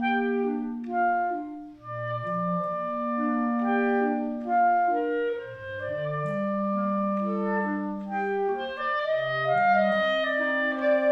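Clarinet quartet of three clarinets and a bass clarinet playing together. The bass clarinet holds long low notes beneath moving upper parts.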